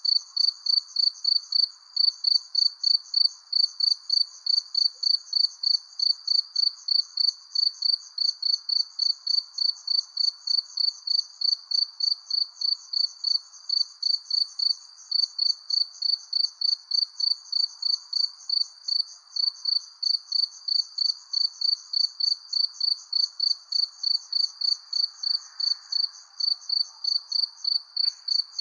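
A cricket chirping steadily at night, about three evenly spaced high-pitched chirps a second, over a faint background hum of more distant insects.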